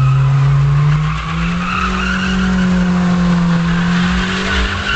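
Honda Civic hatchback's engine held at high revs while its tyres squeal and spin in a smoky burnout donut. The engine pitch steps up about a second in and holds there.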